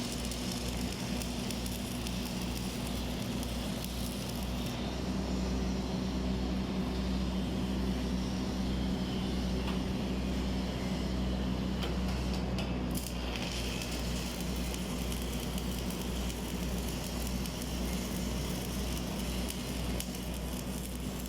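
Electric arc welding crackling and sizzling steadily, over a low steady hum.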